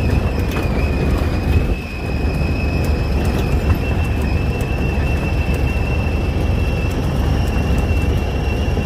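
Side-by-side utility vehicle driving along a gravel trail, heard from inside the cab: a steady low engine and tyre rumble with a constant high whine over it and scattered small ticks.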